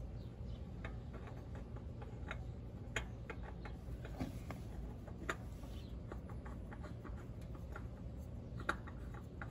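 Scattered faint clicks and light scrapes of a new oil filter being threaded on by hand under a Ram 1500, a few sharper ticks standing out, over a steady low background hum.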